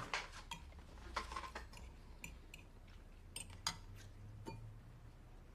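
Faint, scattered clicks of cutlery on plates during a meal, spaced irregularly about every half second to second.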